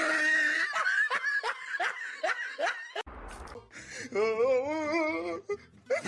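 Laughter as an edited-in sound effect: a rapid run of about eight falling 'ha' notes, then a wavering, warbling voice. The same laugh starts again near the end.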